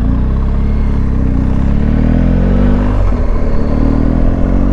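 BMW R1250GS's boxer-twin engine accelerating: the revs rise, drop sharply at an upshift about three seconds in, then rise again.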